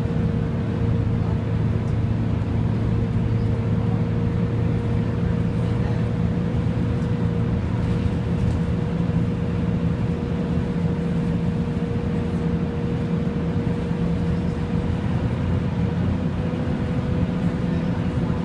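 Volvo B10BLE bus's very loud cooling fan running, a steady drone with a constant mid-pitched tone held over the running engine.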